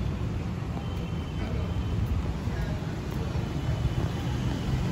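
Street ambience: a steady low rumble of road traffic with no distinct events.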